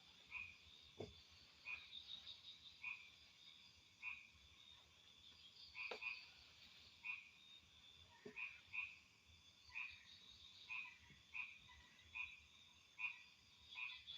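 Faint chorus of frogs calling, short croaks repeated about once a second, over a steady high insect drone.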